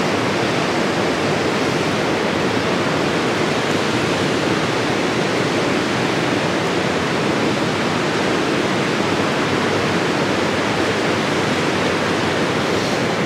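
Steady rush of water churning and foaming below a dam spillway, an even, unbroken noise.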